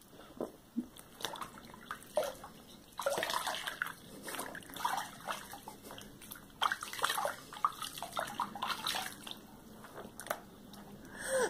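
Water splashing and sloshing in a small plastic baby bathtub in irregular short bursts as the baby moves his arms and a rubber toy in the water.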